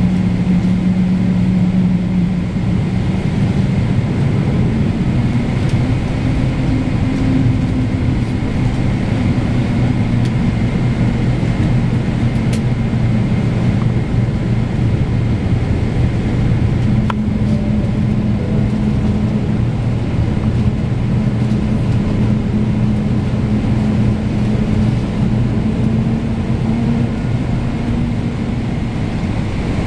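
Airliner jet engines running on the runway: a steady, loud rumble with a low hum that drifts slightly in pitch.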